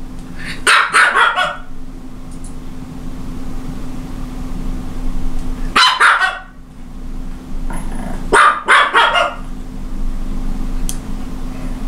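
Japanese Chin, a small toy dog, barking in three bursts of several quick, high-pitched barks each: about a second in, around six seconds in, and again around eight to nine seconds in. A steady low hum runs underneath between the bursts.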